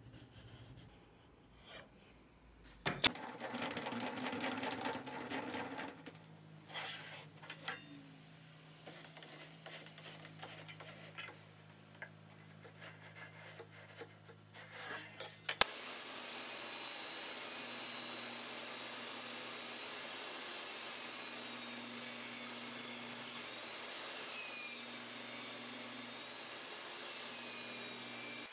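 Wood rubbing and scraping against wood, then a sharp click about halfway through and a table saw running steadily, with a faint wavering whine over its even noise.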